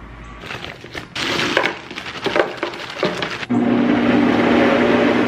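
Countertop blender making a smoothie: irregular crunching and rattling as the blades break up the ingredients, then about three and a half seconds in a loud, steady motor hum as it runs smoothly.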